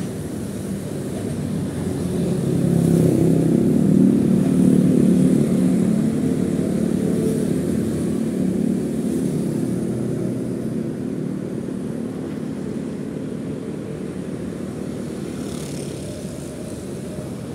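Motorcycle engine running with road noise while riding, swelling to its loudest about three to five seconds in and then easing off slowly.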